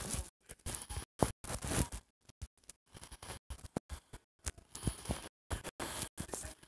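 Irregular rustling and scraping close to a phone's microphone, in uneven bursts with brief dead-silent gaps: handling noise from the phone held and worked by hand.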